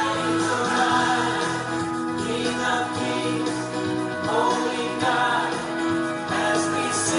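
Christian worship music with a choir singing over a sustained accompaniment.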